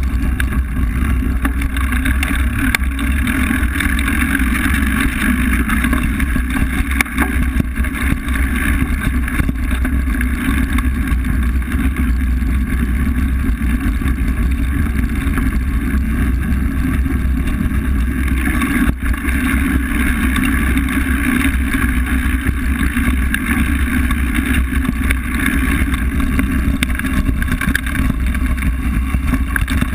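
Steady wind rush and low rumble on the camera of a mountain bike rolling over a gravel forest track, with tyre noise and small clicks and rattles from the bike.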